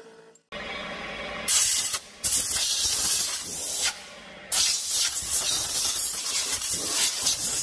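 Compressed-air blow gun blasting aluminium chips off a milling machine's vise and workpiece, in three loud hissing bursts: a short one, a longer one, then a long one.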